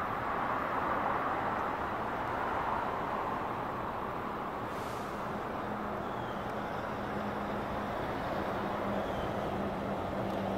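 Steady rushing background noise of vehicle traffic. A low, steady engine hum joins about halfway through.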